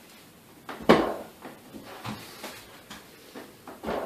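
Several separate knocks and clunks of metal parts being handled on a bare aluminium Subaru EJ25 engine block, the loudest about a second in, with quieter handling sounds between them.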